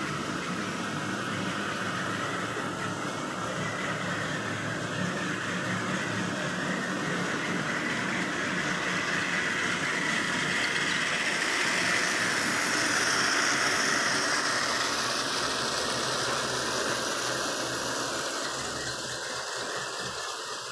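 H0-scale model trains running on the layout: small electric motors whirring and metal wheels rolling over the rails, with a faint squeal. The sound grows louder past the middle as a train comes close, then fades near the end.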